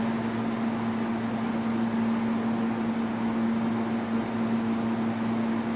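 MTA R160 subway train standing at the platform, humming steadily: one constant low tone over an even rushing noise from its air-conditioning and electrical equipment.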